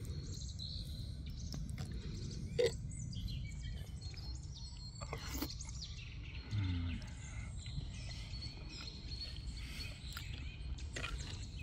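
Birds chirping in a forest over a steady low rumble of outdoor background noise. A sharp click about two and a half seconds in and a dull thump a few seconds later stand out.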